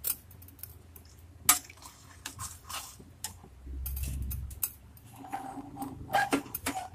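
Metal spoon clinking and scraping against a steel kadhai while stirring a thin, watery gravy, in scattered sharp clicks, with a brief low rumble about four seconds in.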